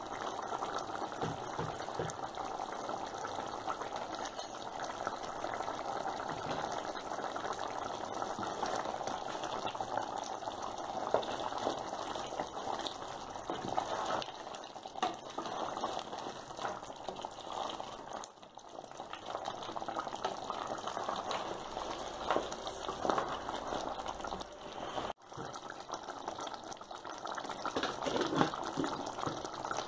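Pot of sheep bone curry boiling hard on the stove: a steady, busy bubbling of water and meat.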